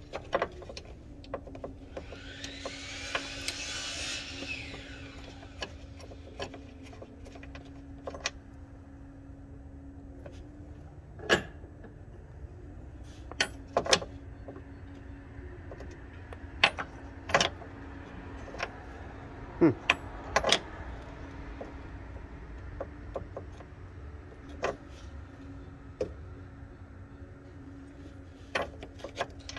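Scattered sharp plastic clicks and knocks from a replacement hood sensor and its wiring connector being handled and fitted in a Ford F-150's engine bay, thickest in the middle of the stretch. A steady low hum runs underneath, and a hiss swells and fades about three seconds in.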